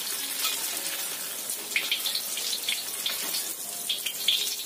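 Tofu deep-frying in hot oil in a wok: a steady crackling sizzle with sharp pops, and a few metal clinks as the fried pieces are scooped out with a ladle into a strainer.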